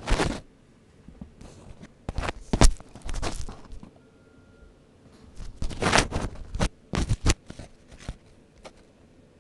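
Handling noise from a handheld phone: rubbing, scraping and knocks against its microphone in three bunches of bursts, with a few single clicks near the end.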